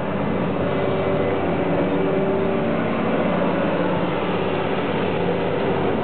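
Caterpillar 323D hydraulic excavator's diesel engine running steadily under load as the machine swings and lowers a concrete pipe, with several steady tones held over the engine noise.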